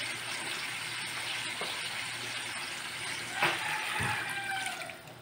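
Pot of sinigang fish broth boiling with a steady bubbling hiss. About three and a half seconds in there is a metallic clink with a brief ring, and a knock follows half a second later.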